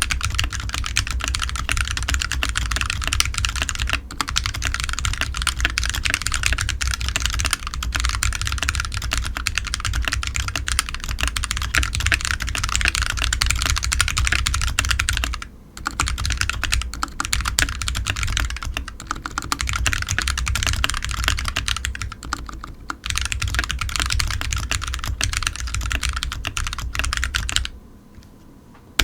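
Fast typing on a Smart Duck XS61 61-key mechanical keyboard fitted with AKKO Sponge switches: a dense run of clacky keystrokes that breaks off briefly about halfway and stops for a moment near the end.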